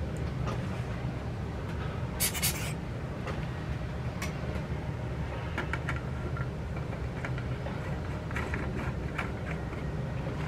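Small clicks and scrapes of fingers handling a Mamiya 6 folding camera as its front lens cell is turned back onto the shutter, with a brief cluster of clicks about two seconds in, over a steady low background hum.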